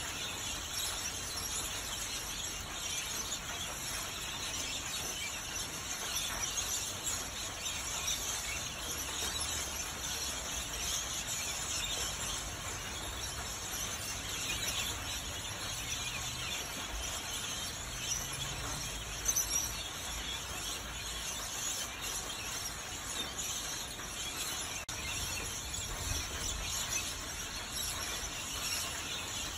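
Rainbow lorikeets screeching and chattering continuously in the treetops over a steady hiss of rain.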